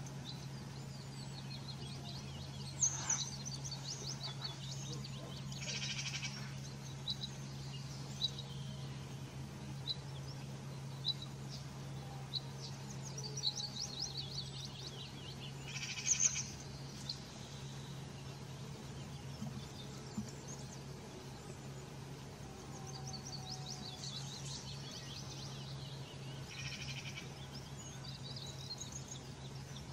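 Small birds singing in rapid high trills and chirps, with a few short harsh calls in between, the loudest about three seconds in and again midway, over a steady low hum.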